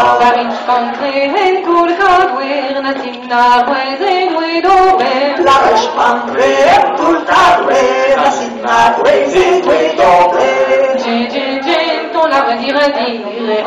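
Unaccompanied Breton dance song for the kas a-barh, sung into microphones by a small group of singers, with women's voices to the fore.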